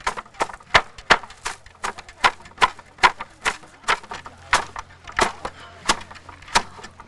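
Hand-worked wooden flax brake knocking down on dried flax stalks in an uneven run of sharp wooden clacks, two or three a second. The dew-retted stalks are being broken so the woody core falls away from the fibre.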